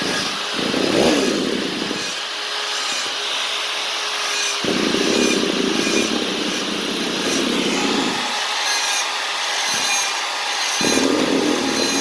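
Handheld electric rotary carving tool running steadily with a small bit, grinding into wood. It gets louder and rougher in three stretches, at the start, in the middle and near the end.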